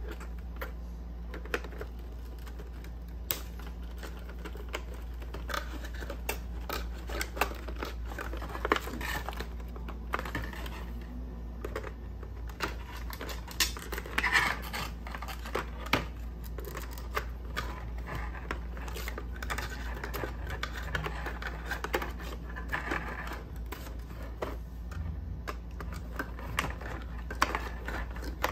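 Hands working a diecast model car free of its cardboard and plastic packaging: scattered clicks, scrapes and crinkling, over a steady low hum.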